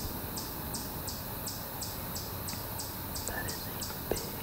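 Insect chirping in a steady, even rhythm of short high-pitched pulses, about three a second, over the low hiss of the woods.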